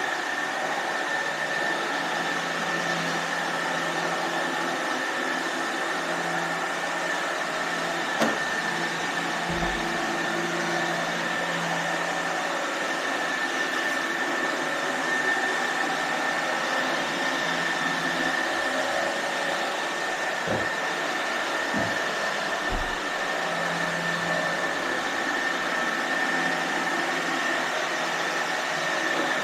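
iRobot Roomba robot vacuums running, a steady whirring hiss of brush and suction motors with a constant high whine. A few short dull knocks come in the middle.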